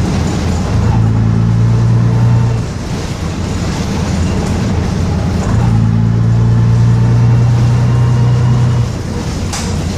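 Bristol RELL6L single-deck bus's diesel engine pulling under load about a second in and again from about five and a half seconds to nine, easing off in between.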